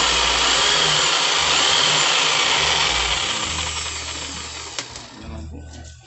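Tolsen corded jigsaw running free with a steady motor whine, then winding down over about two seconds. A single sharp click comes about five seconds in.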